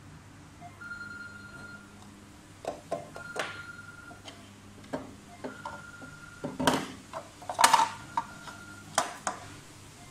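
Hard plastic distribution-box housings being handled, giving irregular sharp clicks and knocks, the loudest two a little after the middle. Behind them an electronic beep sounds about once every two seconds, each beep lasting about a second.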